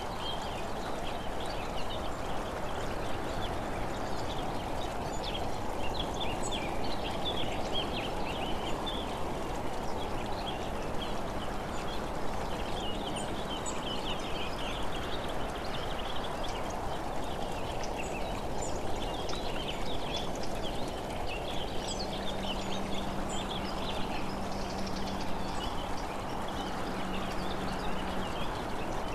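Steady rushing wind and road noise from a vehicle moving along the road, with scattered high, scratchy chirps from roadside wildlife coming and going in clusters.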